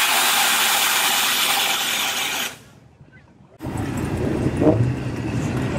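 A loud, steady hiss that cuts off abruptly about two and a half seconds in, followed by about a second of near silence. Then comes a low background rumble with faint voices.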